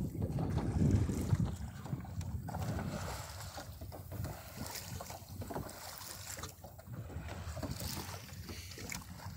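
Wind buffeting the microphone over the wash of water along the hull of a small sailboat under full sail. The wind rumble is loudest in the first second or so, then eases.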